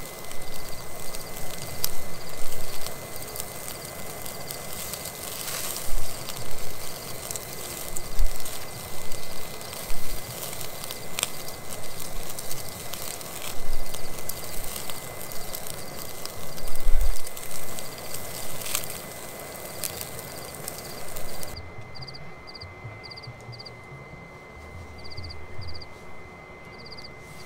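Small wood fire in a portable fire grill, with scattered sharp knocks and crackles as split sticks are pushed into it. A regular night-time chirp repeats steadily underneath throughout. Near the end the hiss drops away abruptly and the sound goes quieter.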